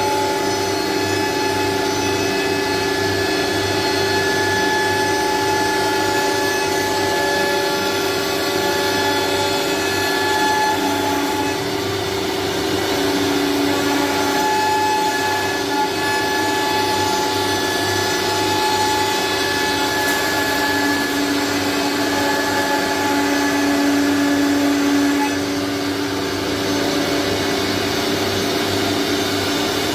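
Single-head CNC wood router with vacuum hold-down table running: a steady whine of several held tones over an even hiss, the pitch shifting slightly now and then as it works.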